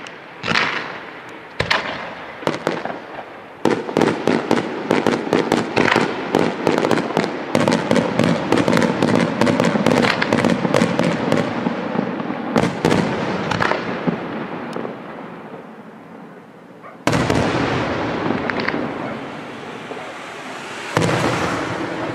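Aerial firework shells bursting, with sharp reports coming thick and fast from about four seconds in and thinning out after that. A sudden loud spell of crackling begins a few seconds before the end, and another follows shortly after.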